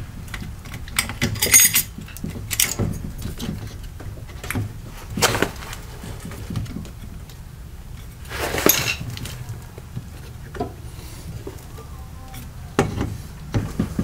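Scattered clicks, knocks and scrapes of hands handling a washing machine's plastic water pump and its metal hose clamps, with a longer scrape about eight and a half seconds in.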